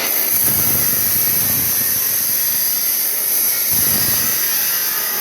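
Machine noise: a steady high hiss over a low rumble that swells briefly twice.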